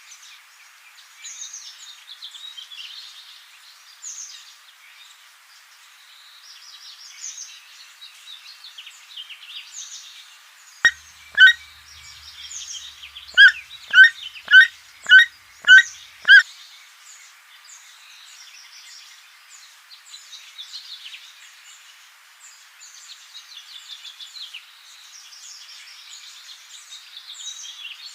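Chorus of many songbirds singing at once. Partway through, one louder bird gives two short calls, then six more at a steady pace of about one every half second.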